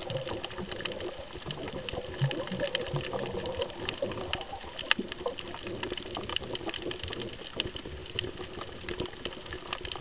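Underwater reef sound heard through a submerged camera: a dense, scattered crackle of sharp clicks over a hollow, muffled murmur.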